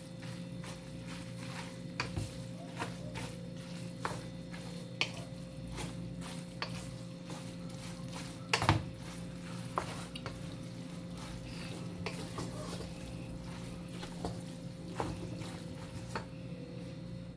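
Spaghetti being stirred and tossed with meat sauce in a large metal pot with a wooden spatula: irregular scrapes and knocks of the utensil against the pot, with one louder knock about nine seconds in. A steady low hum runs underneath.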